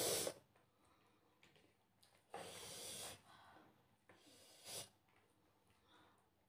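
A person breathing and sniffing through the nose while eating, three breaths: a short sharp one at the start, a longer one about two seconds in, and another about four seconds in.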